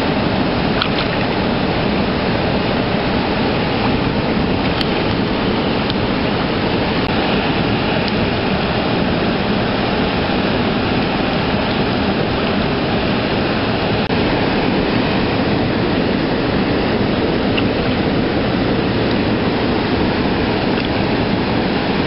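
Mountain stream rushing steadily over rocks: a loud, even sound of flowing water.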